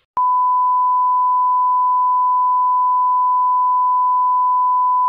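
Colour-bar test-pattern tone: one steady, unbroken high beep. It switches on with a click about a quarter of a second in.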